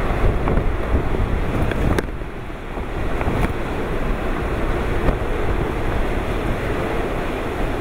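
Typhoon eyewall wind blowing hard in gusts, buffeting the microphone, with driving rain. A few sharp ticks are heard about 2, 3.5 and 5 seconds in.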